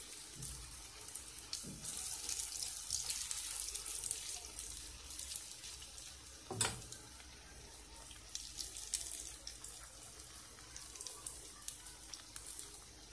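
Grated courgette omelette frying in oil in a nonstick pan: a steady sizzle with fine crackles. One sharp knock comes about halfway through, as the spatula strikes the pan.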